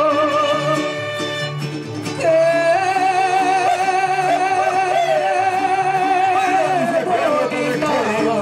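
A woman sings a Mexican folk song live into a microphone, backed by strummed guitars. About two seconds in she holds one long high note with wide vibrato until about seven seconds, then the melody moves on.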